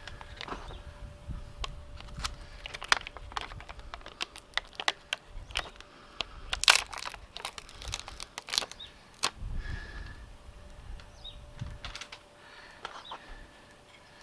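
Irregular sharp clicks and crinkling from handling a tyre plug repair kit, with the sticky repair strips and the metal tools handled by hand. The loudest click comes about halfway through.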